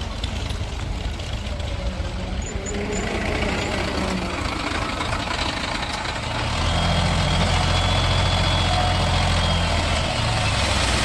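Heavy diesel engine running steadily, growing louder a little past halfway as it takes more load, then easing back near the end.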